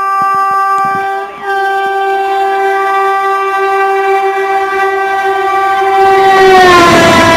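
Horn of an Indian Railways WAP-7 electric locomotive sounding one long, loud blast with a brief break just over a second in. Near the end the horn's pitch drops and the rushing noise of the express passing at speed grows.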